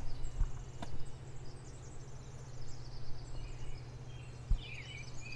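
Four-wheeler (ATV) engine idling with a low, steady hum, while small birds chirp, mostly near the end.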